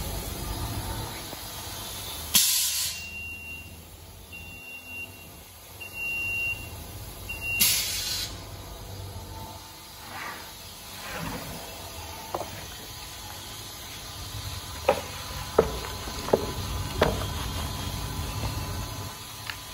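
Small blister packing machine working a sealing cycle. There are two short bursts of air hiss about five seconds apart, with a few short high beeps from the machine between them. Later come several sharp clacks.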